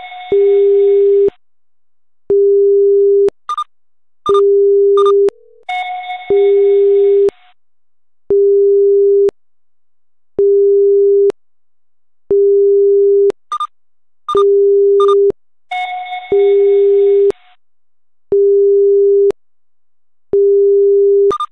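Synthesized alert tones from a live seismograph monitor, set off as the earthquake's waves register on the stations. A steady low beep about a second long repeats every two seconds, like a busy signal. Twice it is joined by a quick run of short higher beeps, and three times by a longer buzzy chime.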